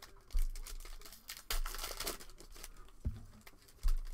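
Foil Prizm trading-card pack wrapper crinkling and tearing as it is handled and opened by hand, with four short low thumps of handling along the way.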